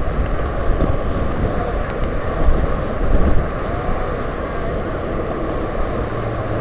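Steady road traffic passing on the bridge roadway beside the walkway, mixed with wind buffeting the microphone.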